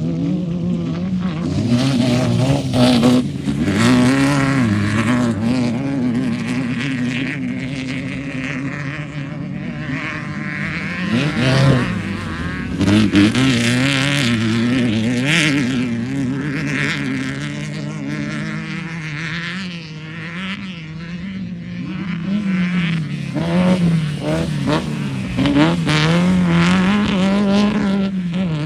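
Off-road racing vehicle engines running hard, their pitch rising and falling again and again as they rev up and ease off.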